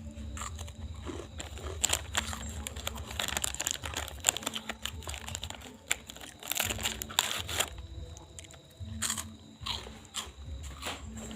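Hands rubbing and kneading skin during a traditional urut massage, close to the microphone: a continuous crunchy rubbing noise broken by scattered sharp clicks.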